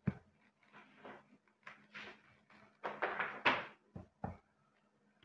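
Clear plastic bag of cake mix rustling and crinkling as it is handled over a plastic bowl, with a sharp knock right at the start and two short dull knocks about four seconds in.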